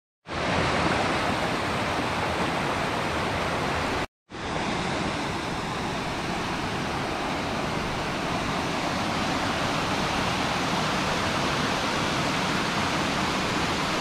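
Small forest creek rushing steadily as it cascades over mossy rocks. The sound cuts out for a moment about four seconds in, then resumes.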